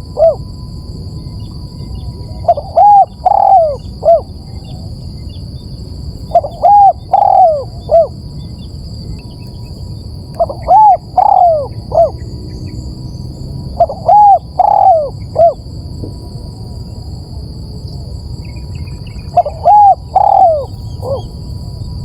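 Spotted dove cooing, its call used as a lure: five phrases of three or four arched coos each, one phrase every three to four seconds, loud and close.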